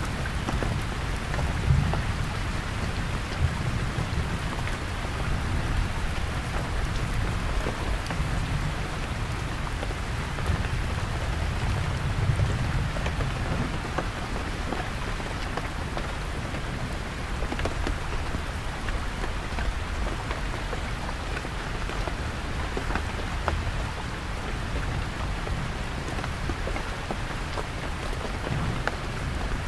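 Heavy rain falling steadily on a canvas tent, with deep distant thunder rumbling low, swelling about a second in and again around twelve seconds in.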